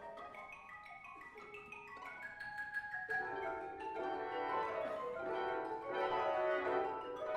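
Symphony orchestra playing contemporary classical music: quick mallet-percussion notes at first, then trumpets and winds join about three seconds in and the music grows fuller and louder.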